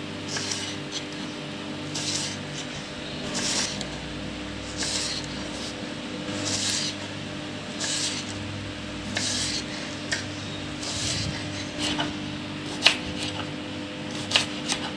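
Kitchen knife slicing raw snake gourd into long strips on a wooden cutting board, a short crisp cut about once a second, with a few sharper knocks of the blade on the board near the end. A faint steady hum runs underneath.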